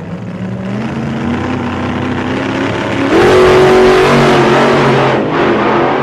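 An engine revving: its pitch climbs, then a much louder rev comes in about three seconds in, rises and holds high, easing briefly near five seconds.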